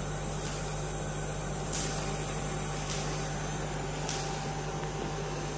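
KEPUNI orbital TIG welding head running an automatic tube-to-tubesheet weld on a heat exchanger: a steady hiss and hum with a faint steady tone, the hiss swelling slightly every second or so.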